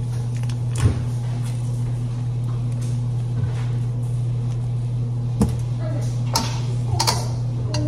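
A steady low hum with a handful of sharp clicks and knocks, typical of kitchen work: one about a second in, and several more in the second half.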